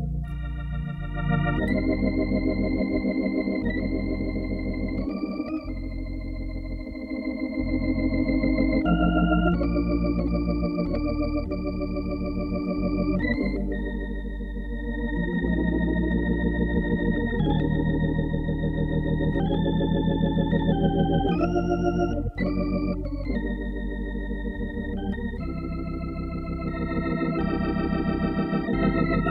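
Hammond B3 organ played solo: held chords that change every second or two over a continuous bass line.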